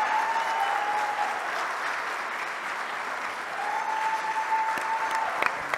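Audience applauding steadily, with a faint, steady, whistle-like tone heard twice: briefly at the start, then again for over a second in the latter half.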